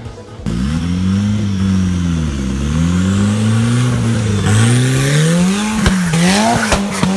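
Off-road vehicle engine revving up and down several times under load, with a few sharp knocks near the end.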